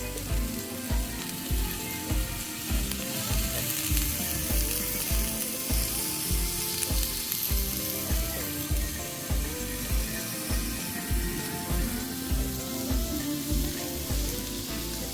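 Background music with a steady beat, over the constant hiss and sizzle of chicken skewers grilling on a charcoal brazier.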